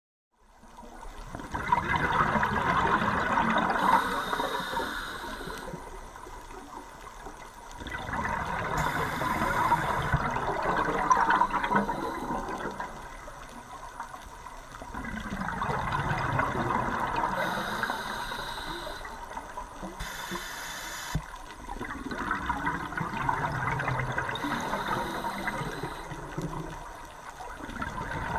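A scuba diver breathing through a regulator underwater: four long rushes of exhaled bubbles, each several seconds long and coming about every seven seconds, with quieter inhalations between.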